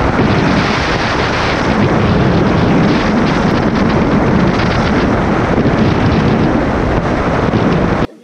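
Loud, steady wind noise buffeting the microphone of a motorcycle-mounted GoPro as the bike rides at road speed, with the motorcycle's running mixed in; it cuts off suddenly near the end.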